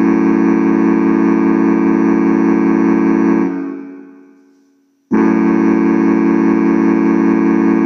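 Casio electronic keyboard holding a loud, steady chord. The chord is released about three and a half seconds in and fades away over a second and a half, then a held chord starts again abruptly about five seconds in.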